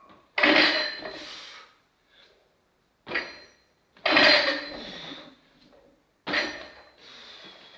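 Loaded barbell with bumper plates hitting the floor three times. Each impact is sudden and loud, followed by about a second of plates rattling and the steel bar ringing.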